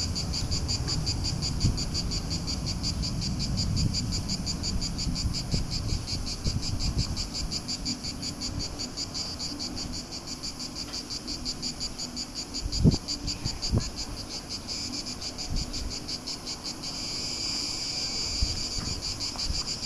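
Cicadas calling in a steady, high-pitched chorus with a fast pulsing beat, swelling louder near the end. Underneath is a low rumble, with two soft knocks in the middle.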